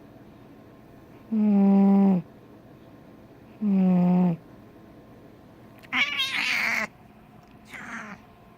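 Domestic cat snoring in its sleep: two tonal snores, each under a second long, about two seconds apart. About six seconds in comes a louder, rougher, rattling snore, and a faint short one follows near the end.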